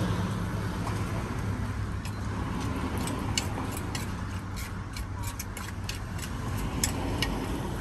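Steady low rumble of street traffic with scattered sharp clicks and taps of utensils at a salad stall, more frequent after about three seconds.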